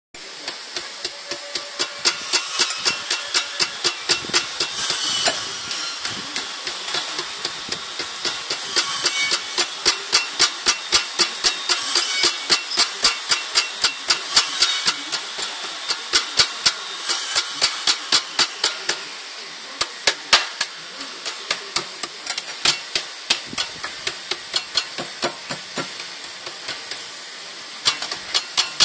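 Pumaspeed aftermarket muffler making a strange noise: a rapid, uneven ticking of sharp clicks, roughly three to four a second with a few brief pauses, over a steady hiss.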